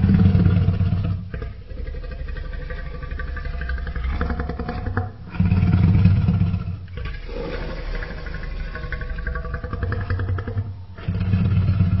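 Designed Carcharodontosaurus saharicus dinosaur vocalisation: a continuous rough, deep growling call that swells three times into loud low rumbles, about five seconds apart, with quieter rough growling between.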